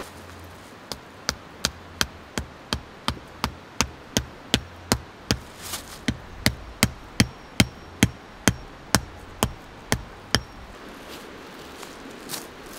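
A tent stake being hammered into the ground to anchor a tarp guyline: about two dozen sharp, evenly spaced strikes, just under three a second, that stop about ten seconds in.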